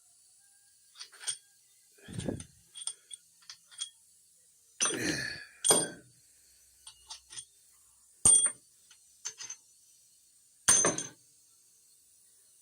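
Irregular metallic clinks, clicks and clanks of steel cylinder head bolts and hand tools being handled while the bolts are taken out of the engine. The loudest clanks come about halfway through, then sharp single clinks near two-thirds and near the end.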